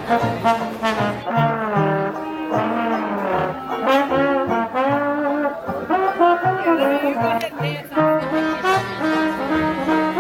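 Brass-led jazz music: horns play a gliding, swinging melody over a regular, pulsing bass line.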